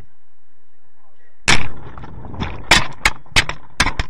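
A loud thump about a second and a half in, followed by four sharper knocks roughly a third of a second apart.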